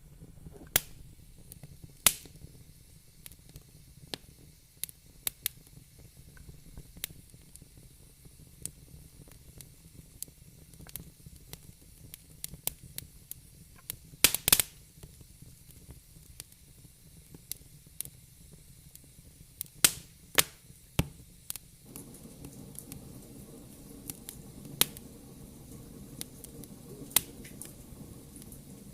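Fire in a fireplace crackling: irregular sharp pops and snaps over a faint hiss, with a quick cluster of pops about halfway through. The background hiss grows a little stronger about three quarters of the way in.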